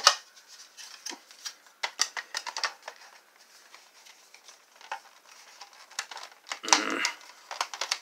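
Hard plastic parts of a transforming aircraft-carrier robot toy clicking, clacking and rubbing against each other as its panels are handled and pushed together. A sharp snap comes right at the start, with a louder clatter near the seven-second mark.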